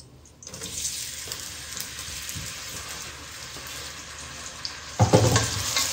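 Finely sliced onions hitting hot desi ghee in a steel pot and sizzling steadily from about half a second in. About five seconds in a louder, lower scraping joins, typical of a wooden spoon stirring the onions through the fat.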